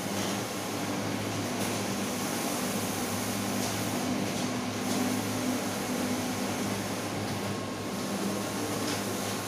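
Large-format inkjet banner printer running: the print-head carriage sweeps back and forth across the banner media over a steady mechanical hum.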